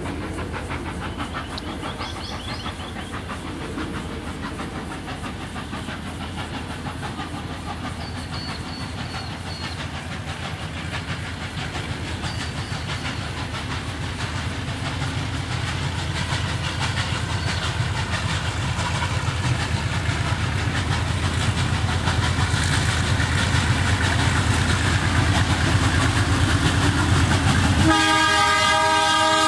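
A doubleheaded train, a 48 class diesel-electric locomotive leading 36 class steam locomotive 3642, approaching with a steady low engine rumble that grows louder as it nears. Near the end a train horn starts a long chord-like blast.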